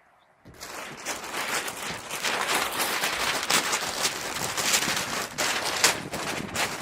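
Loud crackling, rustling handling noise of a roll of self-adhered roofing membrane and its backing paper being unrolled and peeled, starting suddenly about half a second in.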